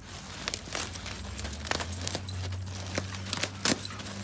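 Dog tearing at and dragging a plastic bag of mulch: irregular crinkling and crackling of the plastic with scattered sharp clicks, the loudest near the end.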